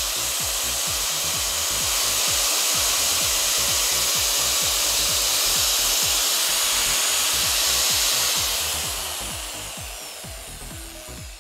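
Makita 9558 angle grinder on a test run after a new armature was fitted, running free at full speed with a steady whine. About eight and a half seconds in it is switched off and spins down, the whine falling away.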